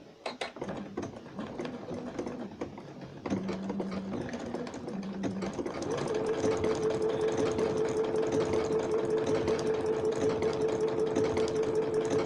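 Electric domestic sewing machine stitching a small blanket stitch. It starts with a few clicks and short, slow bursts of stitching, then from about halfway runs continuously with a steady motor tone and a fast, even stitch rhythm.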